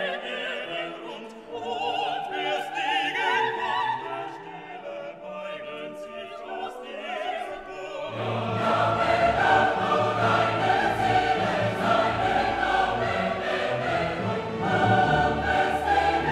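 Classical vocal music: operatic singing with orchestra, growing fuller and louder with deep bass coming in about halfway through.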